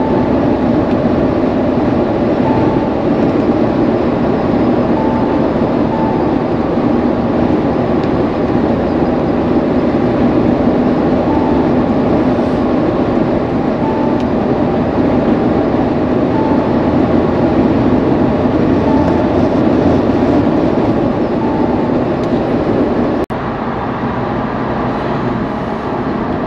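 Steady road and engine noise of a Mahindra Thar driving at highway speed, with a faint short beep repeating about every two and a half seconds. The noise drops abruptly a few seconds before the end.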